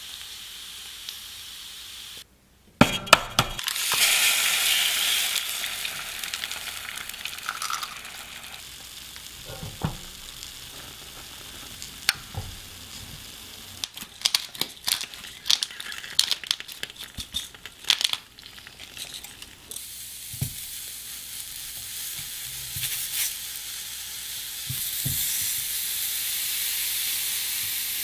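Bacon, eggs and sausages sizzling on a nonstick electric griddle: a steady frying hiss, with a burst of loud crackling about three seconds in and scattered spattering pops in the middle.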